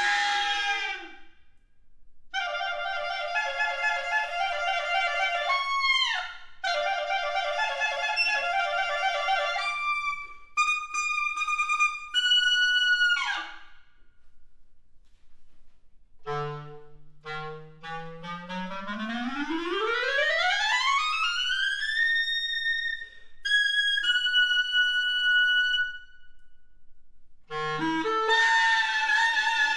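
Clarinet playing a virtuosic unaccompanied-sounding solo passage: fast runs and repeated figures broken by short pauses, with bright high held notes. Just past halfway a long, smooth glissando climbs from the low register to a high sustained note.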